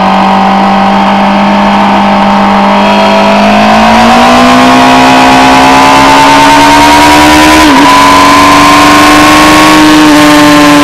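Sportbike engine pulling hard under load at track speed, its note climbing steadily out of a corner and onto the straight, with a brief dip and recovery about three-quarters through, over a steady rush of wind noise on the onboard camera.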